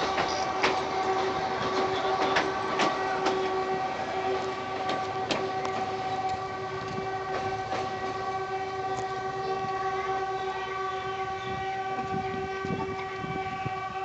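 Kangra Valley narrow-gauge train moving off, its wheels clicking over the rail joints while a single steady horn tone is held throughout. The clicks come thickest in the first few seconds and thin out later.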